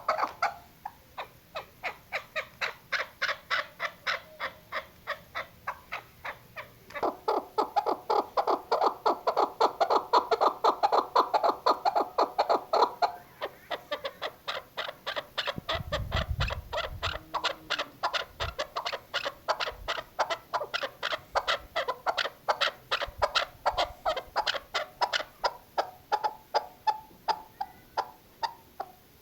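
Female chukar partridge calling: a long rapid series of clucking notes, about four to five a second, loudest in a stretch near the middle. A few low thumps come about sixteen seconds in.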